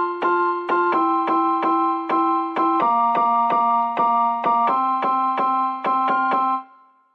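Background keyboard music: piano-like chords struck in quick even strokes, several a second, over held notes, changing chord twice. It fades out about six and a half seconds in.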